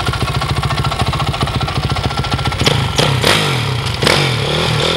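2006 Honda CRF450R's single-cylinder four-stroke engine idling with an even, rapid pulse, then revved in several quick throttle blips from about halfway, the pitch rising and falling with each.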